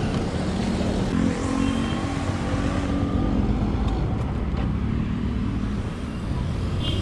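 Motorcycle engine running at low revs with road and traffic noise as the bike slows along the curb and comes to a stop.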